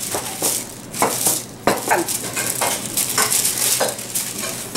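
Wooden rolling pin pushed back and forth over pie dough between sheets of wax paper: repeated rustling, crinkling strokes of the paper, about one to two a second.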